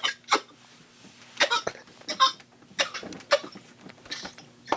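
A man coughing in a fit of about six short, separate coughs that break off his speech.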